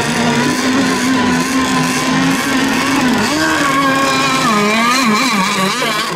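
Several radio-controlled racing boats' motors running at high revs together. Their pitches keep dipping and rising as the boats throttle, turn and pass.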